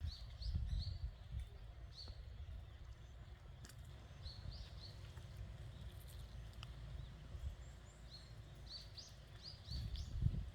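Small birds chirping in three short runs of quick, high, upward-flicking chirps, over a steady low rumble.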